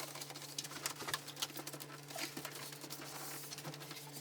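Faint, irregular tapping and rubbing of a rubber fridge door seal being pressed into its channel around the door by hand, over a steady low hum.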